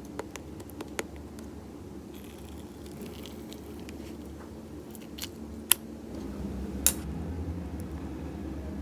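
Elmer's-glue slime being handled, squishing softly with sharp little pops and clicks every second or two, the loudest two near the end, over a steady low background rumble.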